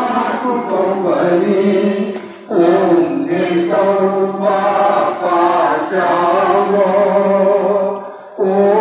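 A group of men chanting a prayer hymn together in unison, reading it from books. The chant breaks off briefly twice for breath, about two and a half seconds in and near the end.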